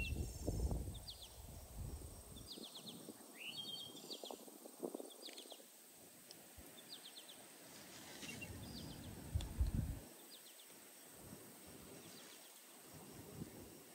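Small birds chirping in short repeated bursts outdoors, with a few dull low knocks of handling near the start and again about nine and a half seconds in.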